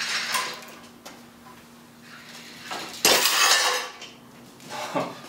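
A sudden crack about three seconds in as the glued wood-block joint gives way under load, followed by the chain and barbell weight plates clattering down for most of a second. Before that, quieter rubbing and clinking of the rope and chain under tension.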